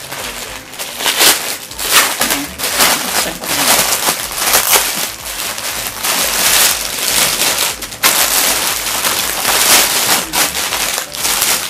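Plastic packaging crinkling and crackling as a poly mailer and a clear plastic bag are handled and pulled open: a dense, uneven run of crackles with frequent louder crunches.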